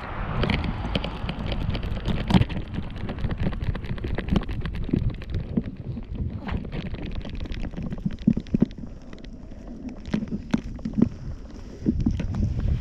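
Wind buffeting the microphone of a camera strapped to a walking Yorkshire terrier, with a steady low rumble. Rapid, irregular clicks and knocks come from the camera rig jostling with the dog's steps.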